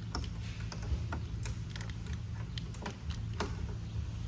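Irregular small plastic clicks and taps as wiring, split conduit and a plug connector are handled and pushed into place, over a steady low hum.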